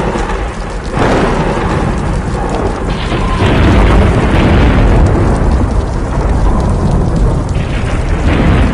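Thunderstorm sound: thunder rumbling over heavy rain, with a new rumble breaking in about a second in.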